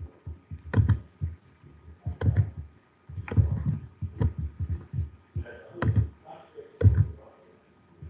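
Irregular clicks and dull thumps from a computer keyboard and mouse worked close to the microphone, about one stroke a second with short pauses between.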